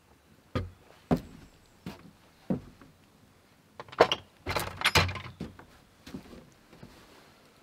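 A few heavy boot steps thud on wooden porch boards, then a plank cabin door is pushed shut with a cluster of knocks and a clatter of its latch hardware about four to five seconds in.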